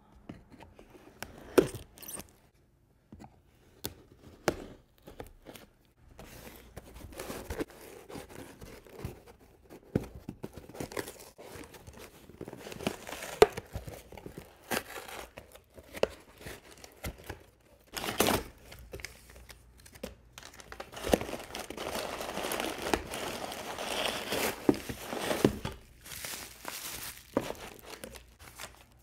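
Cardboard shipping box being opened by hand: scattered taps and scrapes as the packing tape is cut, then steady tearing and rustling of tape, cardboard and packing paper from about six seconds in, and bubble wrap crinkling as it is unrolled near the end.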